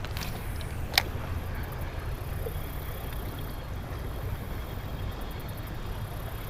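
Steady rush of creek water with a low rumble, and one sharp click about a second in.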